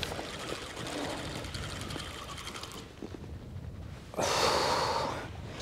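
Fishing reel being wound in against a heavy fish, a faint steady mechanical whirr over low wind rumble. About four seconds in there is a loud, breath-like hiss lasting about a second.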